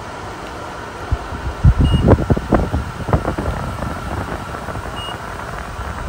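Arctic Air Tower 2.0 evaporative air cooler's fan running steadily, its airflow buffeting the microphone in uneven gusts from about a second and a half in. An infrared thermometer gives two short beeps, about three seconds apart.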